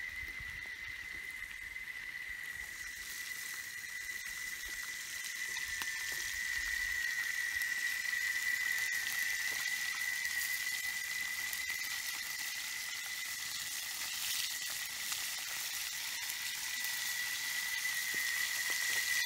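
Fish frying in a metal pan over a wood fire: a steady sizzle that grows louder a few seconds in. A steady high-pitched tone runs underneath.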